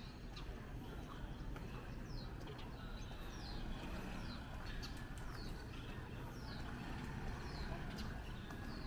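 A bird gives short, high, falling chirps, repeated about once a second, over a steady low hum of street noise.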